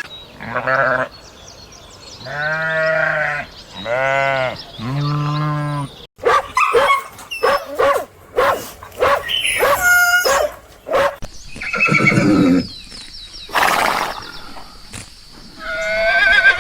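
Farm animals calling in a run of separate calls: three long drawn-out calls a couple of seconds in, then a busier stretch of short calls and clicks, and more single calls later on.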